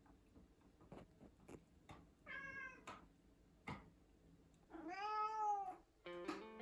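Domestic cat meowing twice: a short high meow about two seconds in, then a longer meow about five seconds in that rises and falls in pitch. The cats are waiting for their food to be prepared. Light clicks sound here and there, and guitar music starts near the end.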